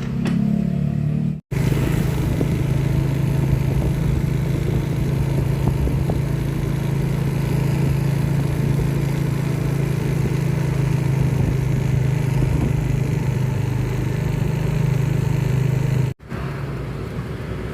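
Motor vehicle engine running at a steady speed while riding along, with road and wind noise. The sound drops out briefly twice: about a second and a half in and near the end.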